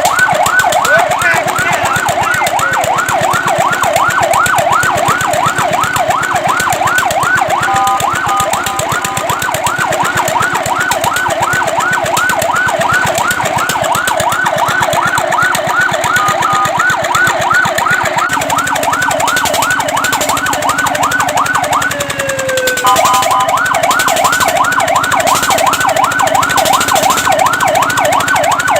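Fire truck siren in a fast electronic yelp, sweeping up and down several times a second. Three times it switches briefly to a short steady tone, and it breaks off for a moment a little over twenty seconds in before resuming.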